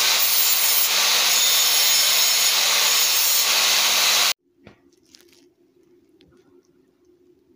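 Handheld angle grinder with its disc grinding into a metal bar: a loud, steady abrasive hiss over the motor's hum, which cuts off abruptly a little over four seconds in. After that only a faint low hum and a few light clicks remain.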